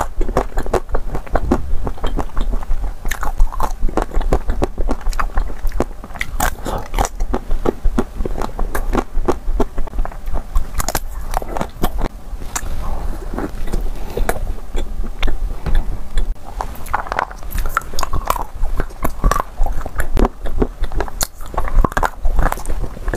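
Biting and chewing a chocolate-coated ice cream bar: the hard chocolate shell cracks in many small crisp clicks and crackles, with chewing in between.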